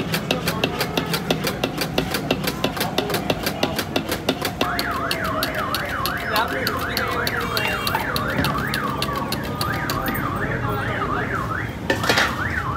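Wire whisk beating egg whites to a froth in a large steel tray, a rapid, even clicking of wire against metal. About five seconds in, a warbling electronic alarm joins, quickly rising and falling in pitch for about five seconds. Near the end there is a short loud burst.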